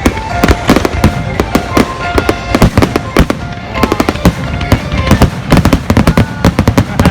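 Aerial fireworks going off in rapid succession: many sharp bangs and crackling bursts close together, with short steady tones heard between them.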